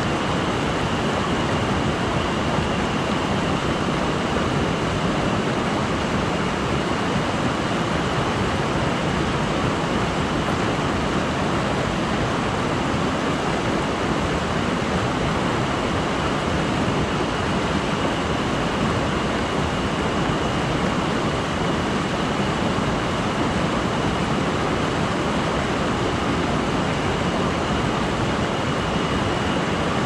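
Mountain stream water rushing steadily, with a thin, steady high tone above it.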